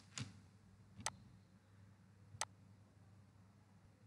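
Three faint, sharp clicks spread over about two seconds, over near silence: computer mouse button clicks.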